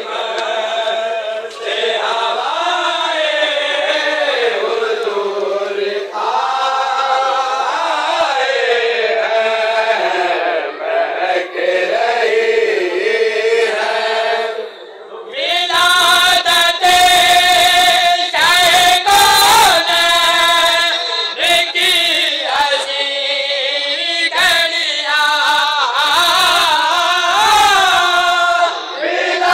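Group of men chanting together in a melodic, gliding line. After a short break about halfway, the chanting comes back louder over a run of sharp knocks.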